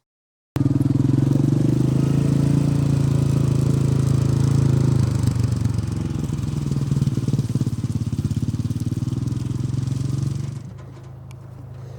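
A machine's engine running loud and steady close by, with an even fast firing pulse; it comes in abruptly after a brief silence, eases slightly partway through and drops to a lower level near the end.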